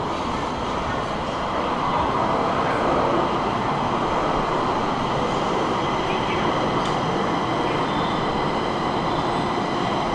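Stockholm metro train running at an adjacent platform: a steady rail rumble with a faint high whine over it, swelling slightly about two seconds in.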